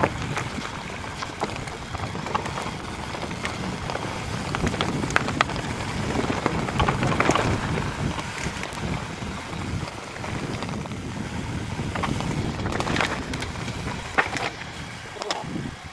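Mountain bike riding fast down a rough grassy track: wind rushing over the microphone and tyres rolling on the turf, with frequent sharp rattles and knocks from the bike jolting over bumps.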